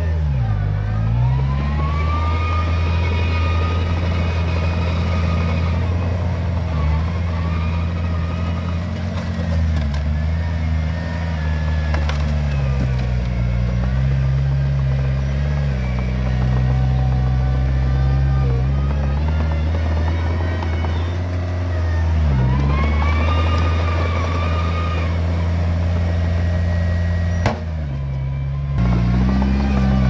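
Diesel engine of heavy earthmoving equipment running steadily under load. Its pitch dips briefly twice, about a second in and again past the twenty-second mark, and each time a higher whine rises and falls above it.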